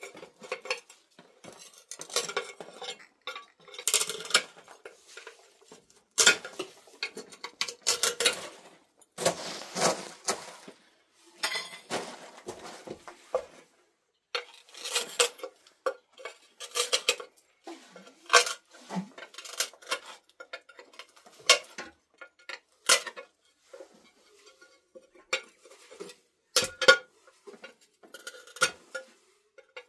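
Steel trowel scraping and tapping on ceramic tiles and mortar as tiles are laid: irregular clinks and scrapes in quick bouts, with short pauses between.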